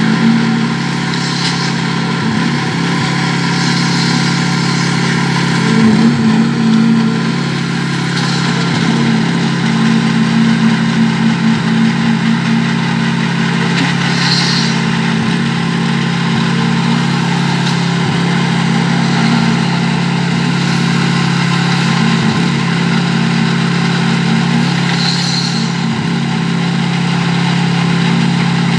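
An engine running steadily at an even speed, with a few short scrapes or clatters on top.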